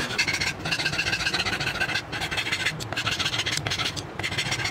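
Hand file rasping across the end grain of a wooden axe handle, trimming it flush with the axe head, in quick repeated back-and-forth strokes.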